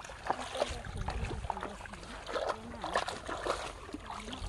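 Feet wading through shallow muddy water, with irregular small splashes and sloshing.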